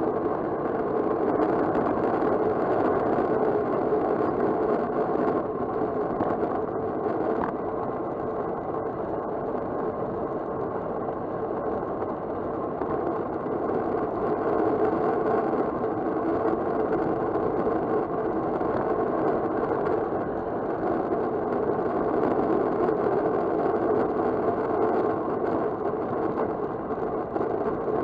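Steady rush of wind over the microphone and road-bike tyres rolling on asphalt, from a bicycle riding fast downhill.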